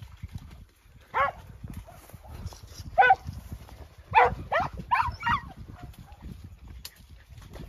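Podenco hound barking out of sight in thick cover: six sharp, high yelping barks, the last four close together, over low rustling of dry brush.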